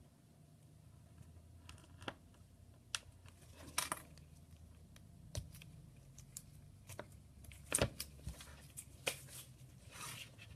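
Scattered small clicks, taps and crinkles of tape being trimmed and pressed onto an iPhone 6's cracked screen glass, over a low steady hum.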